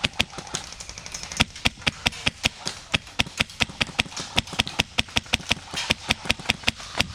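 Airsoft electric rifle firing on full auto, a fast even rattle of shots at about eight a second that runs on with only brief slackenings.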